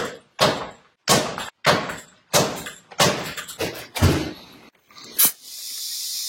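About eight heavy thuds at uneven spacing as a small tire is worked back onto its rim, then a steady hiss of compressed air starting about five seconds in: the tire is being inflated to pop the bead on, which has not yet seated.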